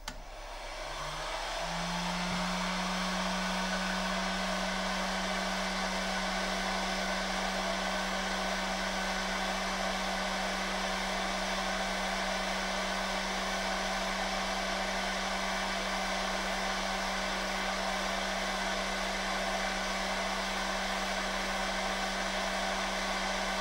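Alphacool HeatGun, a 2000 W hot-air gun, running on its middle heat setting and blowing steadily. Its fan spins up over the first two seconds with a rising hum, then holds a steady hum under the rush of air.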